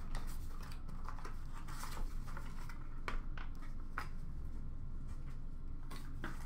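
Several light clicks and taps from a small cardboard box and a plastic card case being handled and opened, over a low steady hum.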